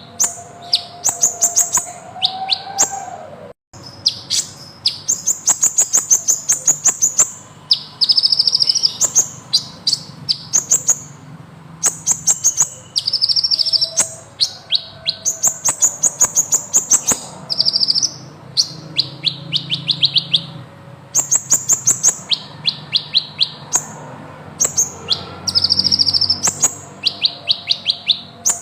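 Kolibri ninja (purple-throated sunbird) singing continuously: long, fast, high-pitched rolling trills and chattering phrases, one after another with brief pauses.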